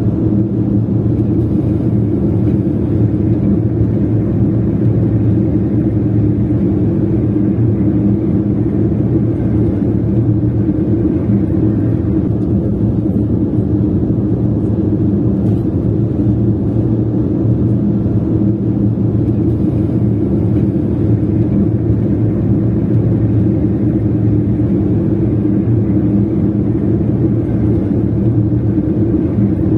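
A car being driven, its engine and road noise making a steady low rumble.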